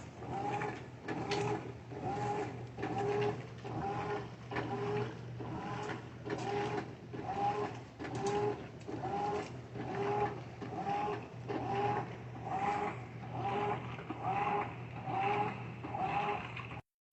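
Top-load washing machine agitating: a steady motor hum with a pitched whine that rises and falls on each stroke, repeating about one and a half times a second.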